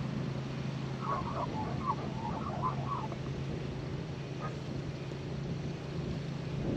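Australian magpie singing softly: a quick run of warbling notes from about one to three seconds in, with a single note later. A steady low hum and wind noise lie underneath.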